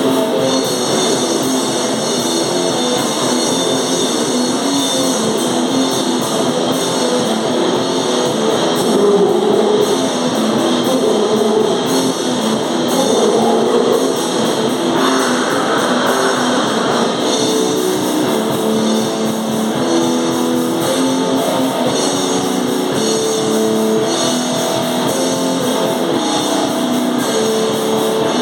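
Live noise metal band playing loud distorted electric guitar over a drum kit, a continuous heavy wall of sound.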